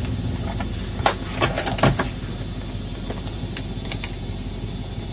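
Inside the cab of a GMC Yukon driving over rough ground: a steady low drone of the engine and tyres, with a scatter of sharp knocks and rattles from the body as it bumps along.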